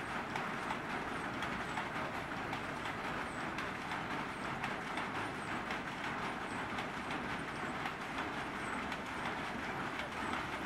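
Batter sizzling in the oiled moulds of a cast-iron paniyaram pan over a wood fire, a steady dense crackle of many small irregular pops.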